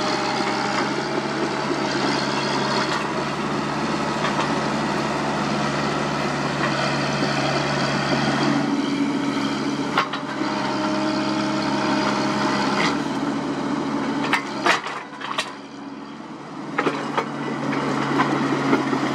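Komatsu PC75UU mini excavator's diesel engine running steadily. Near the end the engine sound falls away for about two seconds, with a few sharp cracks and knocks, before the engine is heard again.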